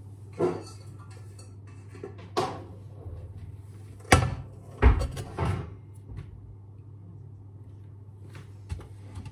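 Kitchen cupboard knocking open and shut and a stainless steel saucepan being taken out, then two loud knocks about four and five seconds in as the pot is set down on a glass induction hob. A steady low hum runs underneath.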